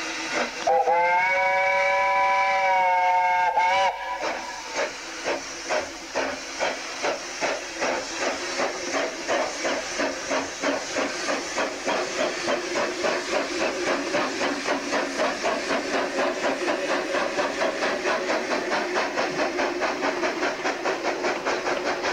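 Double Fairlie steam locomotive sounding a chime-like whistle of several notes for about three seconds, then starting away with exhaust beats that begin slow and quicken to about four a second as the train gets moving.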